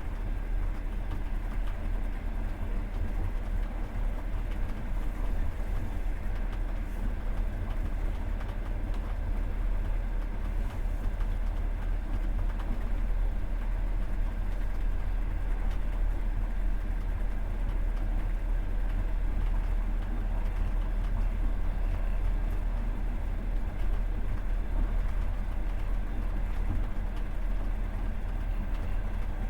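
Passenger train running along the track, heard from inside the carriage: a steady, low rumble of the wheels on the rails and the moving car.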